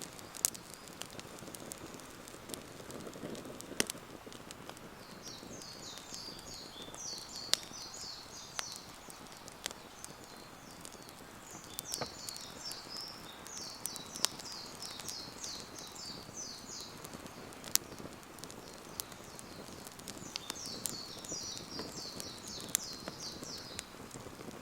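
Wood campfire crackling, with sharp snaps and pops at irregular intervals over a low steady hiss. Three times a bird twitters in rapid high runs of notes.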